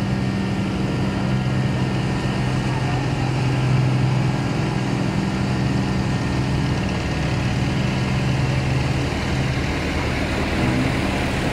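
Combine harvester's diesel engine running steadily as the machine drives along the road, a constant low engine hum.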